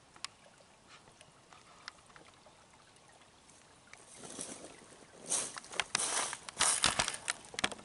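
Shallow woodland creek trickling over rocks. About four seconds in, loud bursts of rustling and crunching, like dry leaves and gravel being stepped on or handled, come and go over it.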